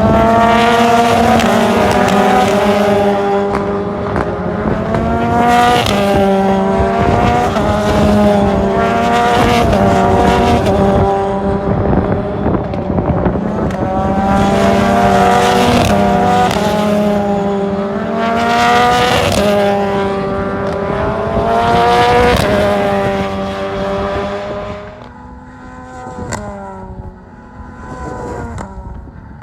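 Single-seater racing cars running at full throttle, their engines climbing in pitch and stepping down at each gear change as several cars go by in close succession. About 25 seconds in the sound drops sharply, leaving only a couple of faint cars further away.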